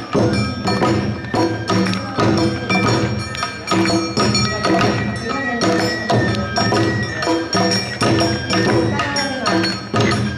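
Awa-odori narimono ensemble playing: taiko drums and a ringing kane hand gong striking a steady quick beat under sustained melody lines from shinobue flutes and shamisen.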